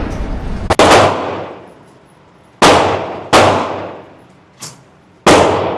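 Gunshots at a shooting range: five sharp shots at uneven spacing, one fainter than the rest, each trailing off in a long echo. The tail of a shot just before also fades out at the start.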